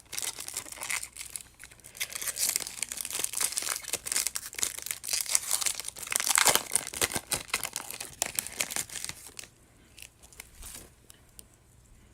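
Wrapper of a pack of football trading cards being torn open and crinkled by hand for about nine seconds, loudest about six seconds in; after that only a few faint clicks.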